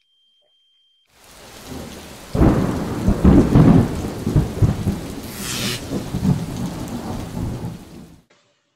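Thunderstorm sound effect: rain hiss fades in about a second in, then a loud rumbling boom of thunder rolls over the rain and dies away, cut off suddenly shortly before the end.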